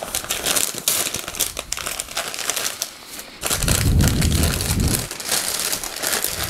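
White packing paper crumpling and rustling as it is unwrapped from a lightsaber hilt by hand. The rustle grows heavier, with a low rumble, a little after halfway through.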